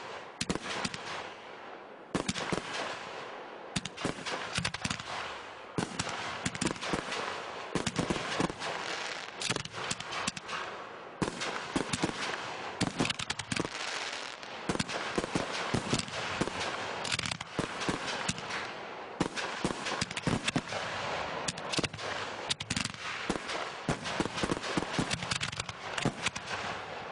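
Aerial fireworks going off in a dense barrage: rapid sharp bangs and crackle, many a second, with hardly a pause.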